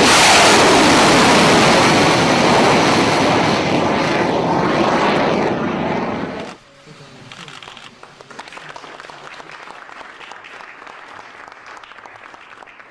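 Roar of a Tomahawk cruise missile's rocket booster launching from a warship's deck, loud and even for about six and a half seconds, then stopping abruptly. After it, a room of people applauding.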